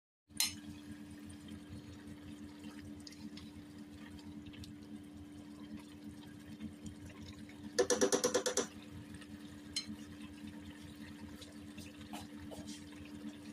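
Chicken pieces simmering in a yellow sauce in a nonstick pan, bubbling steadily over a low hum. A loud, rough burst about a second long comes about eight seconds in.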